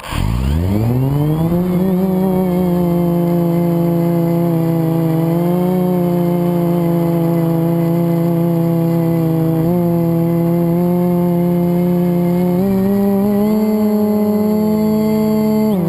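FPV racing quadcopter's brushless motors spinning up from rest to a steady whine, pitch rising over the first second and a half, then holding with small rises and falls as the throttle changes. The quad is being flown with a bad motor bearing.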